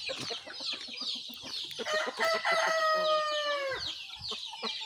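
A rooster crows once near the middle, a single long call of about two seconds that drops at the end. Throughout, a flock of chicks keeps up a constant high peeping.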